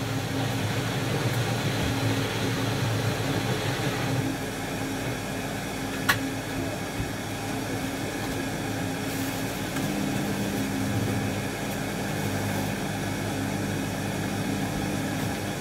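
Steady low machine hum of running cooling equipment, a compressor and fan. A second, slightly higher hum tone joins about ten seconds in, and there is one sharp click about six seconds in.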